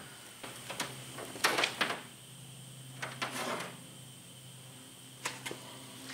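Handling noise: a scattered series of short knocks, clicks and rustles as a plastic fish finder and its wiring are handled on a wooden board, loudest about a second and a half in and again past three seconds.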